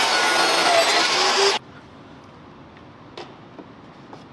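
Table saw ripping a cedar board, a loud steady run of blade and motor noise that cuts off suddenly about one and a half seconds in. After it come a couple of faint wooden knocks.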